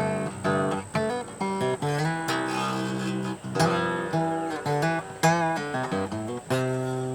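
Acoustic guitar being played: a run of plucked notes and strummed chords, with a chord left ringing near the end.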